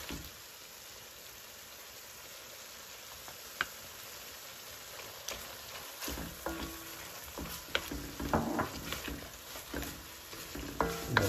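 Chicken thighs frying in hot olive oil in a pan: a steady sizzle, then from about six seconds in a utensil stirring and scraping the pan with irregular clacks and knocks.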